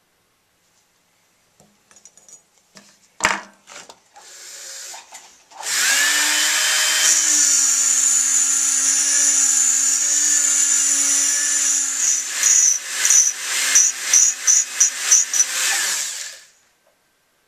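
Handheld rotary grinding tool starting up about six seconds in and running at a steady speed with a high hiss; in its last few seconds the bit is touched to the work in quick short strokes, about two or three a second, before the motor stops. A single sharp click comes a few seconds before it starts.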